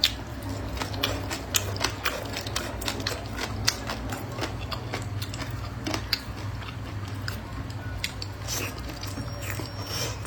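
Close-up chewing and biting of food, with many short sharp crunches and clicks, over a steady low hum.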